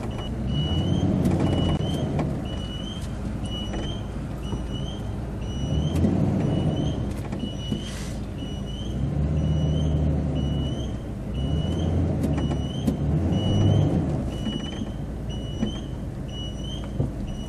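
A pickup truck's backup alarm beeping a little faster than once a second while the truck reverses slowly, its engine rising and falling as the throttle is eased on and off. A single sharp click about eight seconds in.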